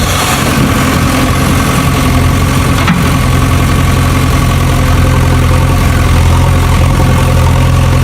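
Small engine idling steadily, an even low drone, with a single light click about three seconds in.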